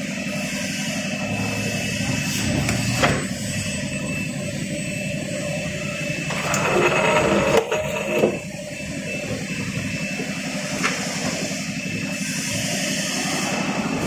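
Injection moulding machine running through a moulding cycle on a refrigerator panel mould: a steady hydraulic pump hum with a thin whine. Around the middle there is a louder stretch of hissing with a couple of sharp clunks as the mould opens and closes.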